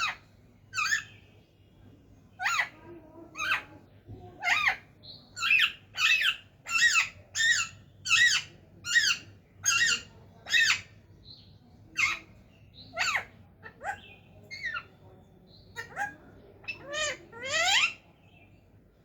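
Parrot calling: a run of short, high, pitched calls about once a second, densest in the middle, with a longer rising call near the end.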